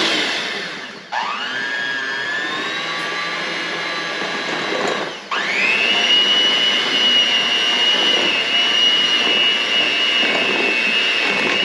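Electric hand mixer beating cream cheese and powdered sugar in a bowl, a steady motor whine. It winds down and starts up again about a second in, then again around five seconds in, and after the second restart it runs at a higher speed.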